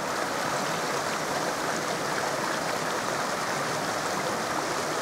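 A shallow, rocky river running: a steady rush of water over stones.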